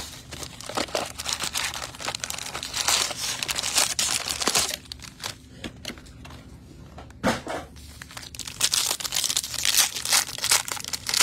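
Plastic wrapping crinkling and tearing in bursts as a sealed trading-card box or pack is unwrapped, with a single knock a little past halfway.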